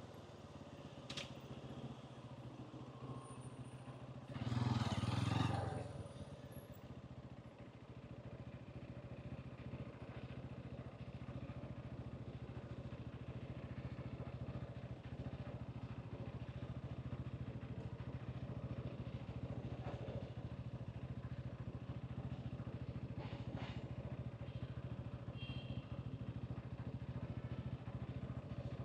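Hansom Bike Venet 125cc motorcycle engine running steadily with a low hum, under street traffic ambience. A brief louder rush of noise comes about five seconds in.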